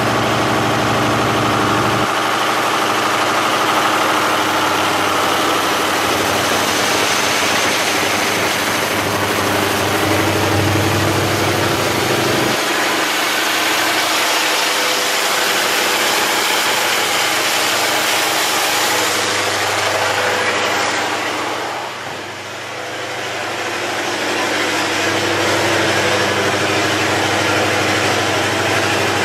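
MTU diesel generator set running steadily during a load test. The low engine hum drops away twice, and the sound dips briefly about two-thirds of the way through.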